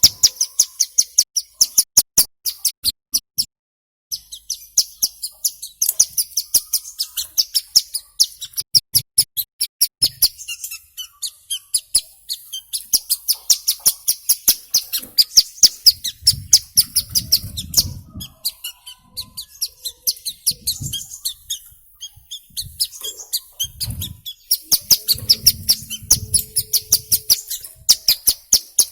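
A ciblek gunung (a prinia) singing: long fast runs of short, high, sharp chirps, several a second. The song breaks off briefly about three and a half seconds in, and there are a few low rumbles in the background later on.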